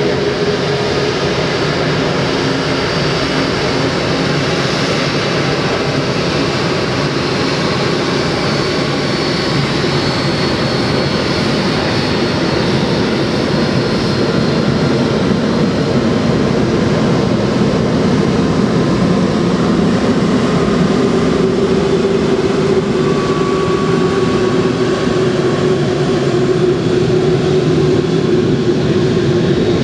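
Airbus A380's four Engine Alliance GP7200 turbofans running at taxi thrust as the jet rolls slowly past. The sound is loud and steady, a low hum with a faint high whine over it.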